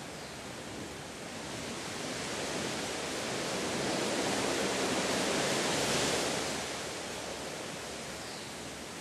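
Steady outdoor rushing noise that swells for a few seconds in the middle and then eases off again.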